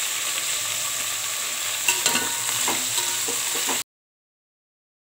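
Chopped vegetables sizzling in hot tempering oil in a metal pot, a steady frying hiss with a few knocks about two seconds in as more pieces drop in. The sound cuts off suddenly near the end.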